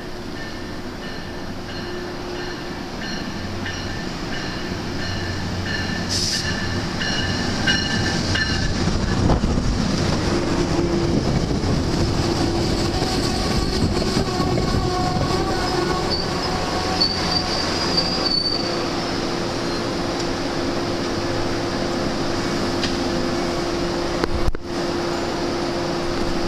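Metro-North diesel-hauled commuter train arriving: it grows louder as it approaches and rolls past along the rails, with a high squeal partway through, then stands with its diesel engine running steadily.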